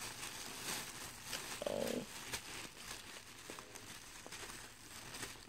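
Thin plastic shopping bag crinkling and rustling quietly as a plush toy is worked out of it.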